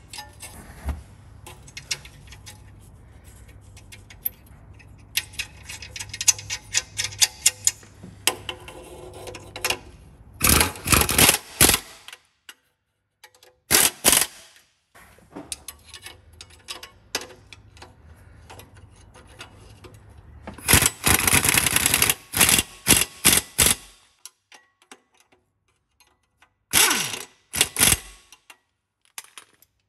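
Socket ratchet clicking in several quick runs as it tightens the nuts on an exhaust flange, with lighter ticking between the runs.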